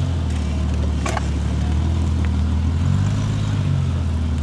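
Engine of a modified off-road SUV running steadily at low revs as it crawls over rough ground. There is a single sharp knock about a second in.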